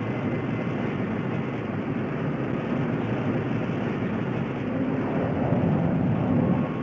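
Rocket sled's rocket motors firing as the sled runs down the test track, a steady rushing noise. It grows louder from about five seconds in, as the F-111 escape module's ejection rocket fires it off the sled.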